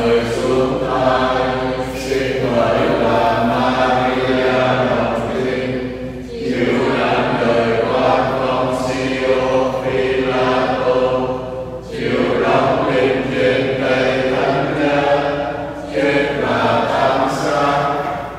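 Slow devotional hymn sung in sustained notes, in long phrases with brief breaks about every four to six seconds.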